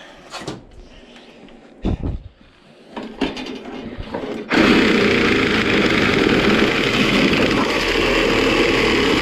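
A few handling knocks, then about four and a half seconds in a power tool starts and runs steadily, cutting through the AC condenser's copper tubing.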